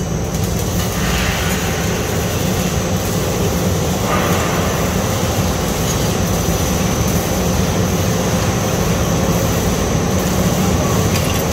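ABA-1000mm production machine running steadily during its start-up: a continuous rushing mechanical noise over a low hum, growing a little brighter about four seconds in.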